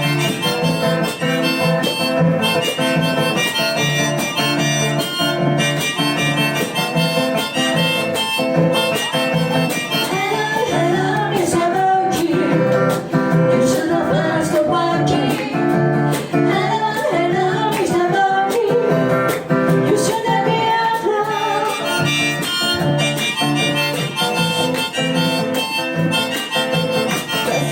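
Instrumental band music with no singing: a steady accompaniment under a lead melody, which bends up and down in pitch through the middle section.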